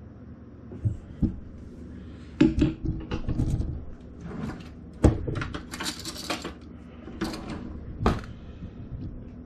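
Handling noise as a camera is picked up and repositioned in a kitchen: scattered knocks and clicks, the loudest about two and a half and five seconds in, with a short rustle just after the middle.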